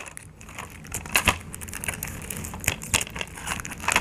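Plastic shrink wrap on a Blu-ray case being picked at and peeled by hand, crinkling with irregular sharp crackles.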